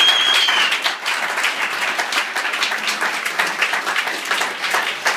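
Audience applauding, many hands clapping in a dense, irregular patter, as the last note of the music fades out at the very start.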